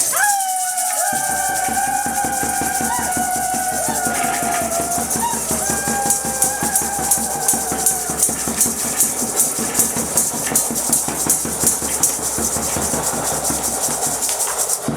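Music: a fast, high rattling percussion runs throughout, with a held, gliding melody line over the first half, and a steady beat of about two pulses a second comes through from about six seconds in.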